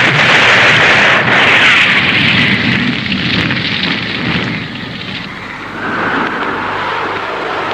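Tokusatsu sound effect: a long, loud explosion-like rush of noise with crackle. It eases about five seconds in, and a fainter rushing noise over a low steady hum follows.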